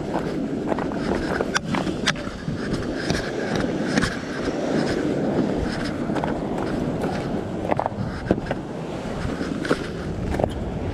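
Footsteps and scuffs over a shell-crusted rock ledge, with frequent irregular clicks and knocks of gear, over a steady rush of surf.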